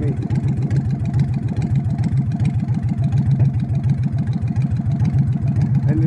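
A motor running steadily: a low, even hum with a fast, regular pulse.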